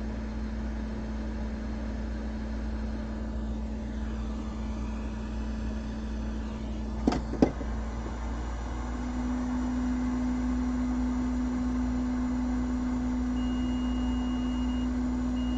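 Hot air rework station blower running with a steady hum. Two sharp clicks come a little past the middle, after which the hum steps slightly higher and louder.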